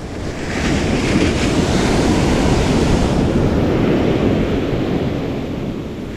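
Surf wave breaking and washing up the sand, swelling about half a second in and slowly fading away over the following seconds.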